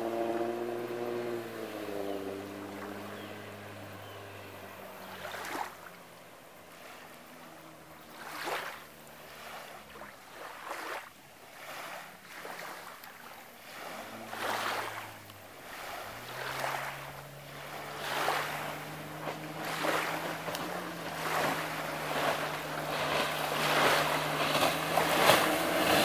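1999 Johnson 25 HP two-stroke tiller outboard on an aluminum jon boat running at speed: its note drops in pitch as the boat passes and fades into the distance, then comes back steady and louder as the boat returns near the end. In the quieter middle, waves splash about once a second.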